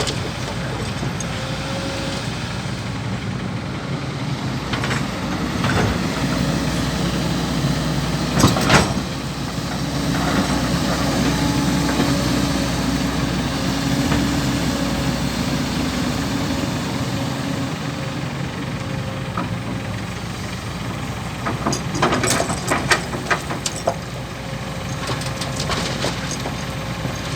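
Kobelco excavator's diesel engine running steadily while it loads soil into a dump truck. There is a sharp clatter about eight and a half seconds in and a run of knocks in the last few seconds, as bucket and soil strike the truck.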